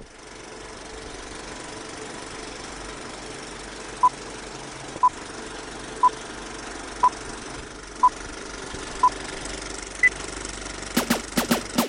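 Film-leader countdown effect: a steady film-projector whir and clatter, with a short beep once a second six times, then one higher beep. Drums start near the end.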